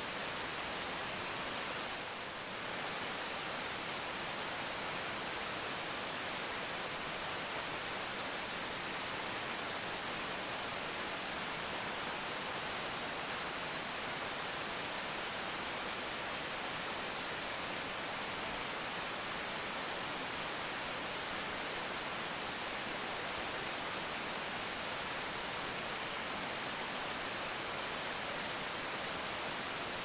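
Waterfall pouring off a rock ledge into a shallow pool: a steady, even rush of falling water, briefly a little softer about two seconds in.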